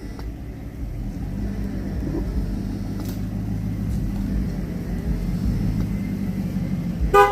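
A car engine running in a steady low rumble as the car pulls up. Near the end there is one short, loud tonal blast.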